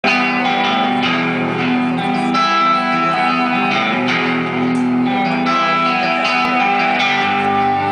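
Live band music led by guitar: strummed and picked guitar chords with sustained notes, no singing.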